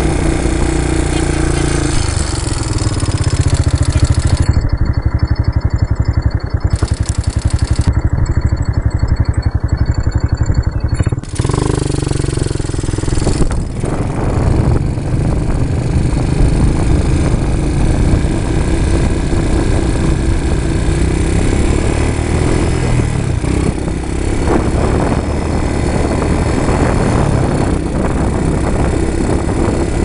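Quad bike (ATV) engine running steadily as it is ridden along the sand, with a brief dip about eleven seconds in.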